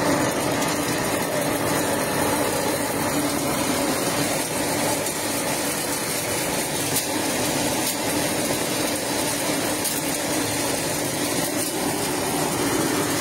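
Hazelnut stone-and-soil separating machine running steadily: its electric motors and blower fan give a constant hum over a rush of air.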